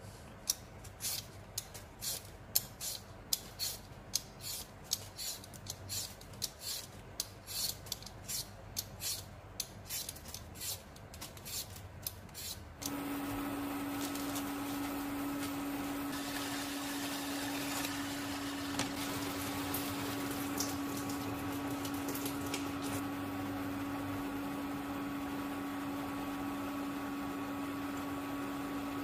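A vegetable peeler scraping the skin off a potato, about two quick strokes a second. About thirteen seconds in this gives way abruptly to a portable induction cooktop heating a saucepan, a steady hum with a low tone and fan noise.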